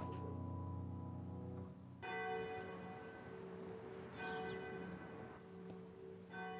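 A held musical note fades out, then soft bell-like chime tones strike about every two seconds and ring on.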